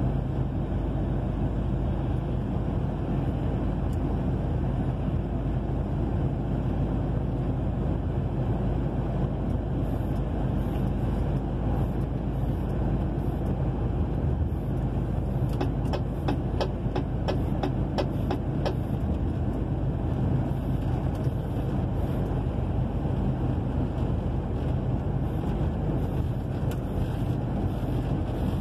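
Inside a truck cab at highway speed: the engine drones steadily under road noise from the wet highway. About halfway through comes a quick run of about ten clicks, some three a second.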